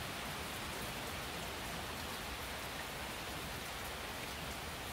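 Pouring rain, a steady even hiss with no separate knocks or other sounds standing out.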